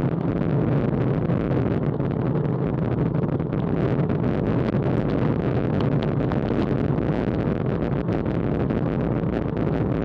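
Steady wind rush and tyre-on-road rumble on a bicycle-mounted action camera's microphone, riding at about 23 mph.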